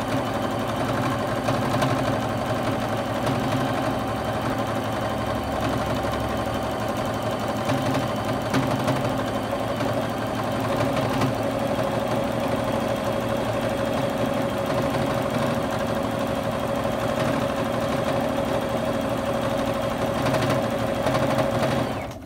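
Juki HZL-F600 domestic sewing machine running steadily, stitching during free-motion quilting as the quilt is moved by hand under the needle. It stops abruptly right at the end.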